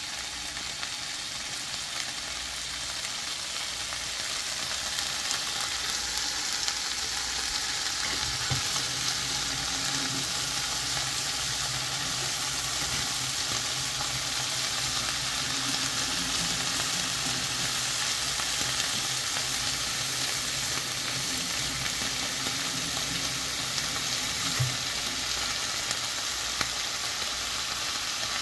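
Cubes of paneer sizzling steadily in shallow oil in a pan, browning on their first side. The sizzle grows a little louder about four seconds in.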